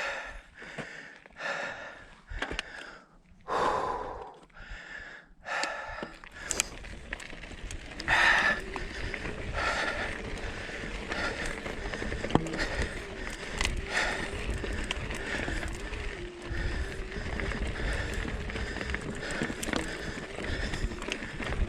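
A mountain biker panting hard, about one heavy breath a second, for the first several seconds of a steep climb. After that, an electric mountain bike's motor gives a steady, slightly wavering whine under load, over the rattle of tyres on rocky trail.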